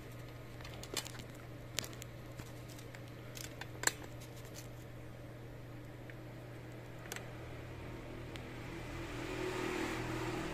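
A steady low background hum with a few sharp, isolated clicks. A soft hiss swells near the end.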